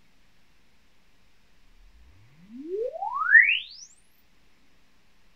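Logarithmic sine-sweep test tone, a single clean tone gliding smoothly upward from a deep hum to a very high whistle in about two seconds, starting about two seconds in. It is the measurement sweep used to take the Thiele-Small parameters of a 12-inch subwoofer driver weighted with added mass.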